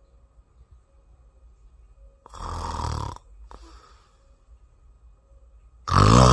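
Two loud snores about three and a half seconds apart: the first a little over two seconds in, the second near the end, louder and with a fluttering rattle.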